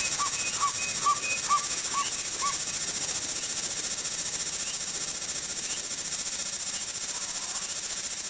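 Steady high-pitched insect chorus from a grassland soundscape, with a bird calling a run of short, evenly spaced notes, about two a second, that stops about two and a half seconds in.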